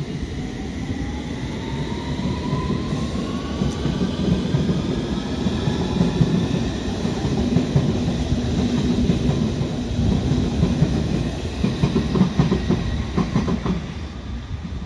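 London Underground S Stock train accelerating past on the platform road. A rising whine climbs over the first several seconds above a heavy rumble of wheels on rail, and a run of wheel clicks over rail joints comes near the end as the last cars go by.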